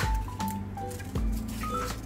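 Background music with gentle held notes, with a sharp click right at the start and a soft low thump a little past the middle.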